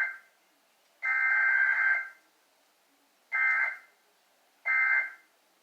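Emergency Alert System digital data bursts broadcast over FM radio, the buzzing two-tone warble of the SAME code. One burst ends right at the start, a burst of about a second begins about a second in, and two shorter half-second bursts follow about a second and a half apart.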